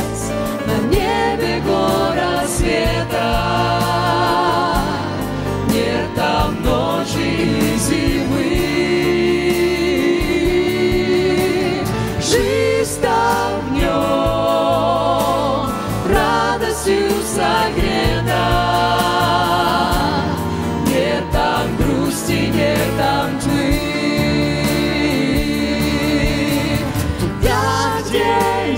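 Christian song playing: voices singing long, wavering notes over a backing track with a steady bass.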